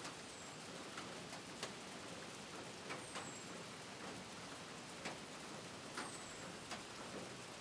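Light rain with a steady faint hiss and scattered drops ticking at irregular spacing, about once a second. Three short, faint high whistles fall in pitch: one near the start, one about three seconds in and one about six seconds in.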